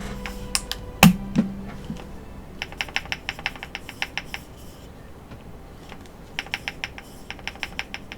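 Keyboard stabilizers being pressed over and over to check them for rattle: two runs of rapid, sharp plastic clicks, with a few louder knocks in the first second and a half. Background music plays underneath.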